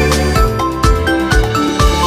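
Instrumental background music with a steady beat, about two beats a second, under held melodic notes.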